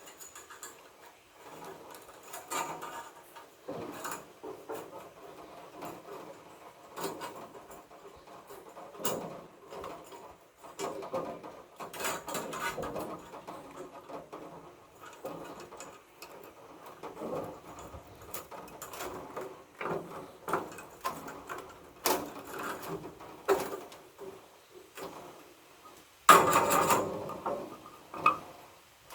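Irregular clicks, knocks and clatter of hands-on work, with a louder burst of clattering near the end.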